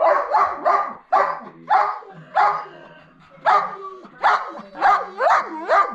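Harnessed sled dogs (husky mixes) barking and yipping with excitement: a dozen or so sharp barks in quick succession, with a short pause about halfway, some barks bending up and down in pitch.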